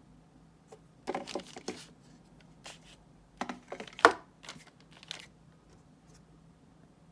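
Packaging being handled: three bouts of crinkling and clicking about a second, three and a half seconds and four and a half seconds in, the sharpest click just after four seconds.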